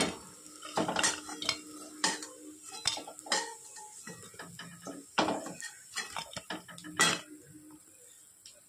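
Sharp metal clinks and scrapes, about one a second, from a metal frying pan (kadai) being tipped and scraped as fried spinach pakoras are moved onto a plate. A low ring lingers after several of the strikes.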